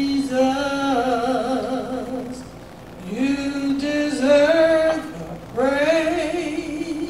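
Slow worship song sung by voices, with long held notes wavering in vibrato, in three phrases with short breaths between them.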